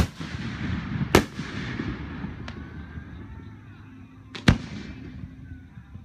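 Aerial firework shells bursting overhead: three sharp booms, one at the start, another about a second later and a third about four and a half seconds in, each trailing off in an echoing rumble.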